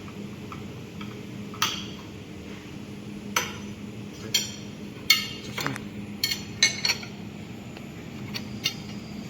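Sharp metallic clinks and knocks of steel parts, about ten of them, several close together in the middle, over a steady low machine hum.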